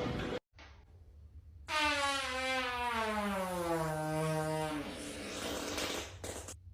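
A long, tonal human fart that starts about two seconds in and falls steadily in pitch over about three seconds, then trails off into a breathy hiss before stopping abruptly.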